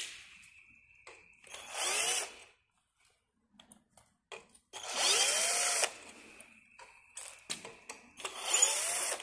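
Cordless drill-driver run in three short bursts of about a second each, its motor whine rising in pitch as it spins up each time, taking out the screws that hold a drone arm. Small clicks of handling come between the runs.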